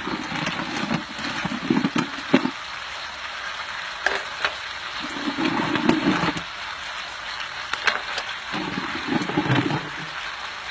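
Food sizzling as it fries, with scattered clicks and knocks.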